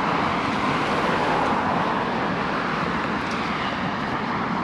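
Road traffic noise: a steady hiss of passing cars, a little stronger in the first couple of seconds.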